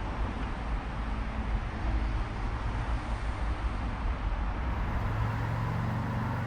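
Outdoor background noise: an uneven low rumble, joined about five seconds in by a steady low hum like a running motor.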